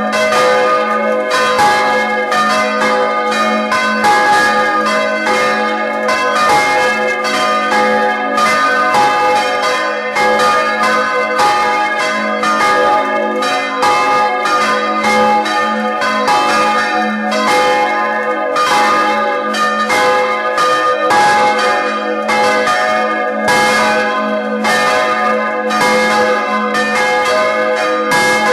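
Three swinging church bells, cast in 1850 and tuned to G♯3, C4 and D♯4, ringing together in a mixed peal heard close up inside the belfry. Strikes come several times a second and overlap, over a steady low hum from the largest bell.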